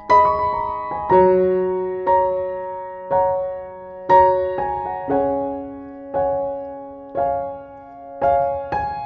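Soft background piano music: slow single notes and chords struck about once a second, each left to ring and fade.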